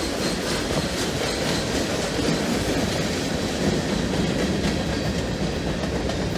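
Freight train cars rolling past, a steady noise of steel wheels on the rails.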